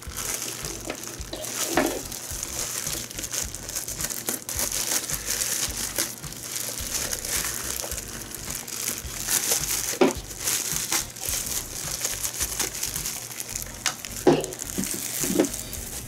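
Thin plastic wrapping bag crinkling and rustling continuously as it is pulled and unwrapped from a small plastic appliance by hand, with a few brief louder handling noises.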